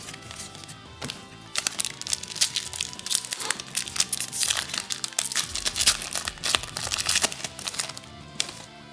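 Foil trading-card pack wrapper being torn open and crinkled by hand, a dense run of crackling that starts about a second and a half in and dies away near the end.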